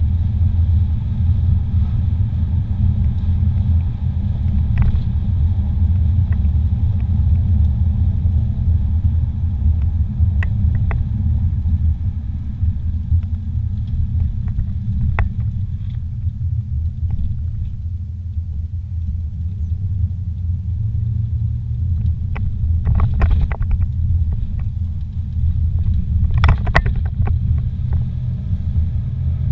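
Low, steady rumble of a car driving on the highway, heard from inside the cabin, with a few short clicks scattered through it.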